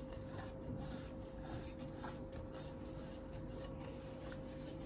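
Faint soft scraping of a cake spatula smoothing ganache against the side of a cake, in irregular light strokes, over a steady faint hum.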